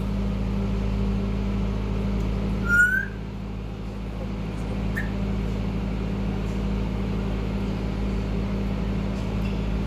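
African grey parrot giving a short rising whistle about three seconds in and a brief chirp about two seconds later, over a steady low hum.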